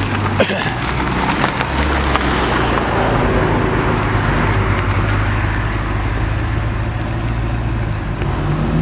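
Mercedes-AMG CL 63's V8 engine running steadily at low revs, with a deep, even engine note. A short click comes about half a second in, and the pitch begins to rise near the end.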